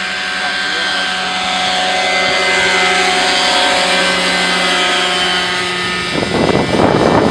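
Radio-controlled scale model helicopter, a model of an AS350 Ecureuil, flying past: a steady engine and rotor whine made of many pitched tones, some sliding slowly lower as it goes by. About six seconds in, a burst of rough noise comes over it.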